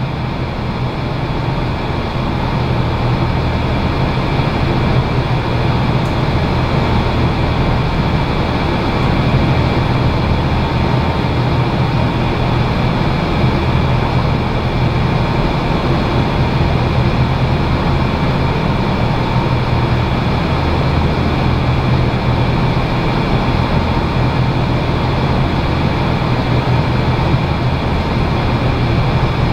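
A steady low droning hum under an even hiss, unchanging throughout, with no distinct knocks or voices.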